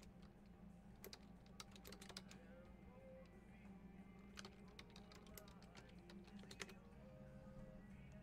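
Faint computer-keyboard typing in three short runs of keystrokes.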